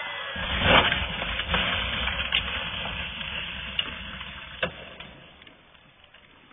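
Traxxas Rustler XL-5 RC truck with monster truck wheels driving over a gravel track: its brushed electric motor and tyres on loose gravel, with a few sharp stone clicks, fading as the truck drives away.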